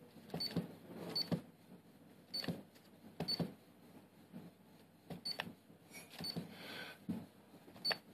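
Orion Advantage Touch battery charger's touchscreen giving a short high key-press beep with each tap, about six times at an uneven pace.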